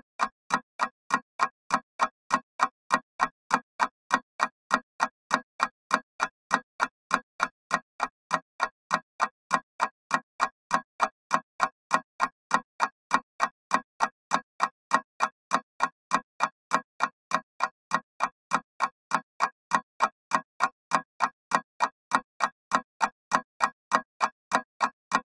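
Clock ticking: sharp, evenly spaced ticks, a few a second, each the same loudness.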